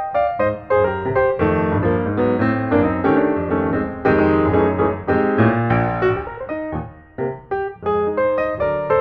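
Background music: a piano piece of quick notes and chords.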